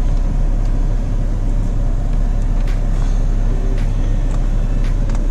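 Cadillac STS engine idling steadily as a low, even hum, with a couple of faint clicks.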